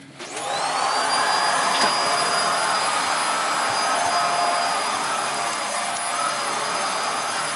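Vacuum cleaner switched on: its motor whines up to speed within about half a second, then runs steadily with a high whine over a loud rush of air.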